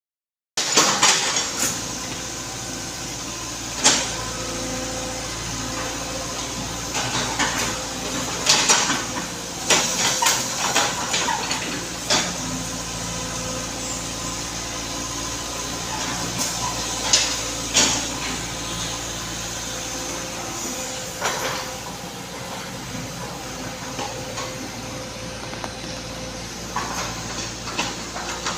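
An engine running steadily, with scattered sharp knocks and clanks over it.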